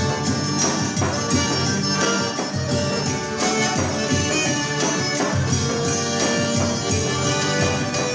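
Instrumental forró played by a band, with a steady dance beat under a held melody line and no singing.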